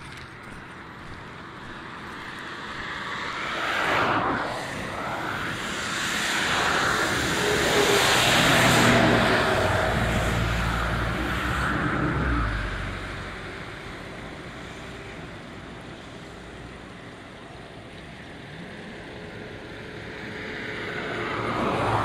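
A car passing on a flooded street: tyre hiss and engine noise swell to a peak about halfway through and then fade, with a smaller pass-by a few seconds in and another one starting near the end.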